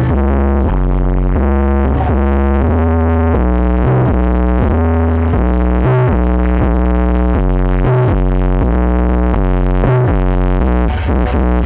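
Loud electronic dance music with heavy, sustained synth bass notes and chords, played through a carnival sound system.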